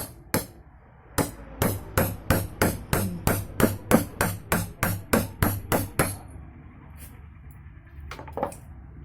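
Hammer blows in a steady run, about three a second for some five seconds, after two opening knocks; a few lighter knocks follow near the end.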